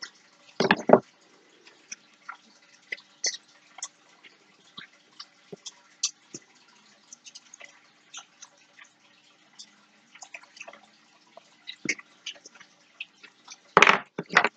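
Light, scattered clicks and taps of small pliers and a metal earring hook being handled, with a louder bump about a second in and another near the end.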